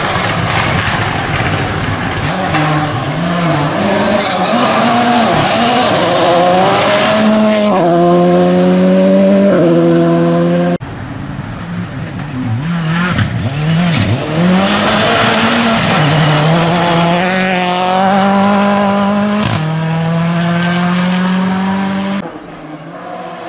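Rally car engines at full throttle on a dirt stage, in two passes: each time the engine note climbs hard and drops back in quick gear changes, over tyre and gravel noise. The first pass breaks off abruptly about halfway through and the second one follows.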